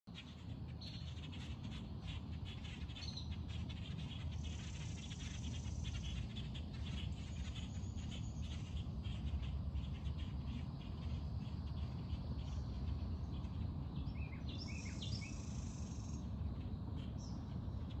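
Wild birds chirping and calling, with many quick repeated chirps in the first half and a run of falling whistled notes later on. A steady low rumble sits underneath.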